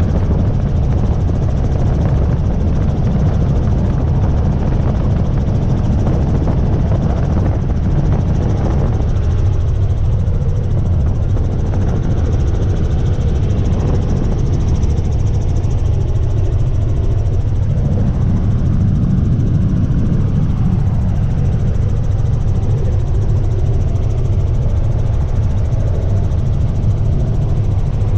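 Tour helicopter running, a loud, steady low rumble of rotor and engine.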